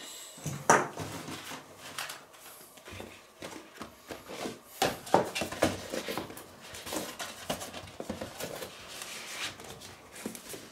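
Cardboard product boxes being handled, opened and set down on a table: irregular knocks, taps and rustling, the sharpest knock about a second in.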